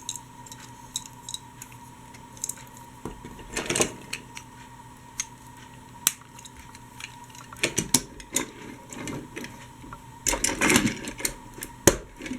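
Small die-cast and plastic toy trains being handled: scattered clicks and knocks, with a louder clatter of pieces about ten seconds in, over a faint steady hum.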